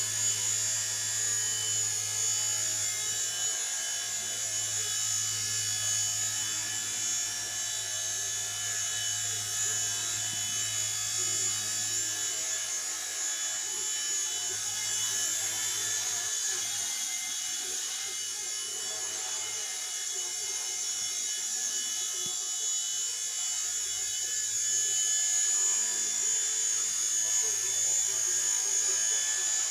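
Small electric indoor R.C. helicopter in flight, its motor and rotor blades whirring with a steady high whine, a little louder near the end.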